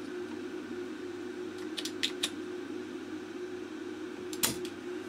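Spring-loaded manual desoldering pump (solder sucker) being worked on a multilayer circuit board: a few light clicks around two seconds in, then one sharp snap about four and a half seconds in as the plunger fires to suck solder from blocked through-holes. A steady low hum runs underneath.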